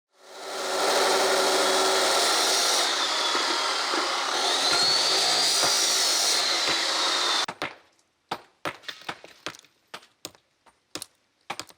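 A power tool cutting with a steady, loud noise, its whine rising and then falling in the middle. It stops about seven and a half seconds in, and is followed by a series of sharp, uneven knocks like hammer blows.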